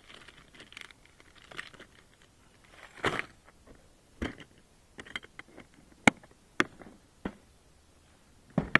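Faint crinkling of a plastic lure packet, then a rustle and a series of sharp plastic clicks and clacks as a blue three-tray cantilever tackle box is handled and shut. The loudest clacks come about six seconds in and near the end.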